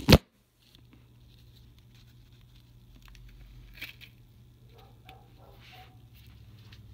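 Handling noise from a phone or camera held against the hand: a couple of loud knocks at the start, then faint rubbing and rustling with a small tick about four seconds in.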